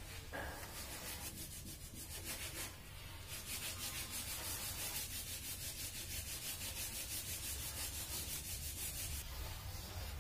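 Hand sanding of a Hindustan Ambassador's front fender with sandpaper: quick, even back-and-forth strokes rasping over the painted steel panel, several strokes a second. The strokes are fainter at first and get steadier and louder about three seconds in.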